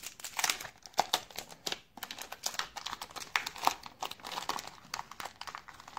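Crinkly wrapper of a 1990 Leaf baseball card pack being handled and torn open by hand, a dense irregular crackling throughout.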